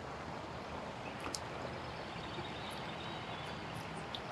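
Steady outdoor background noise, with a few faint clicks about a second in and near the end.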